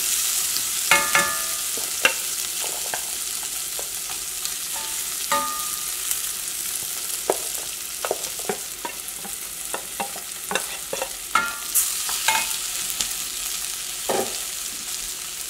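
Cooked chana dal with onion and chilli frying in coconut oil in a stainless steel pan: a steady sizzle, with scattered scrapes and knocks of a wooden spatula against the pan as it is stirred, a few of them ringing briefly off the metal.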